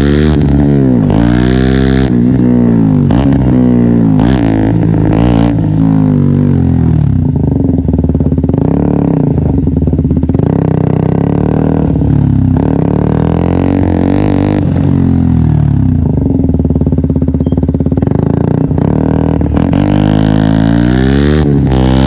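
KTM 125 Duke's single-cylinder four-stroke engine revving hard under acceleration, its pitch climbing and dropping with quick gear changes several times in the first few seconds, then running at a steadier speed, and climbing again near the end.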